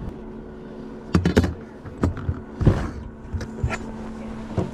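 Steady low hum of an electric trolling motor on a jon boat, with several sharp knocks and thumps against the boat scattered through it, the loudest a little after a second in and again near three seconds.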